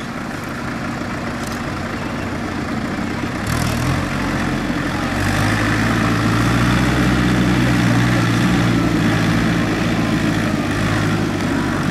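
Tractor engine running, growing louder about four seconds in and then holding a steady note.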